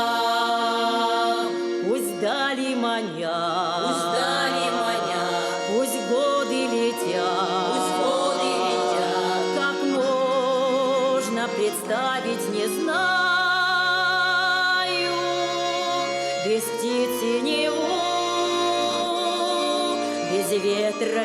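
Folk ensemble singing a song: several voices together, holding long notes with a wavering vibrato.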